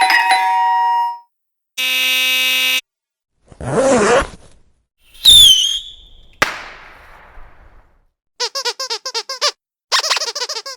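A string of short, separate novelty sound effects with silent gaps between them. In turn: a ringing tone, a steady buzz, a wavering pitched sound, a high whistle-like tone that falls and then holds, a sharp hit that fades away slowly, and two runs of rapid chirping pulses near the end.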